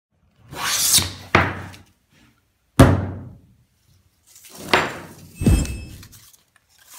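A run of about five sharp thuds, spaced a second or so apart, each dying away; the first and fourth are led in by a rising swish.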